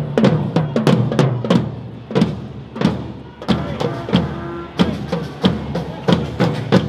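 Drums beaten in a loose, uneven rhythm, about three hits a second.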